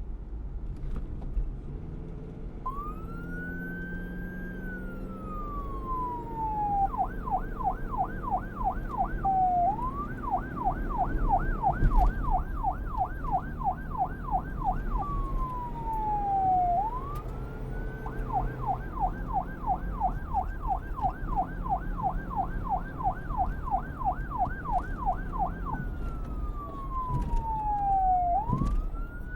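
Police car siren, starting about three seconds in with a slow wail that rises and falls. It then switches back and forth between fast yelp sweeps and slow wails, over a low rumble.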